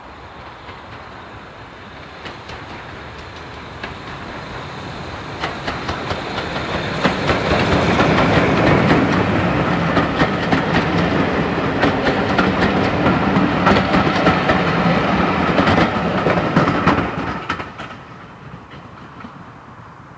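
BR Standard 4MT 2-6-0 steam locomotive hauling a train of coaches past. The sound builds as it approaches and goes by, then the carriage wheels clatter over the rail joints in many sharp clicks. It falls away steeply about 17 seconds in as the last coach passes.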